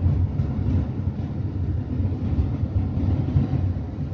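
Steady low rumble of a car driving at motorway speed on wet asphalt, heard from inside the cabin: engine, tyre and wind noise together.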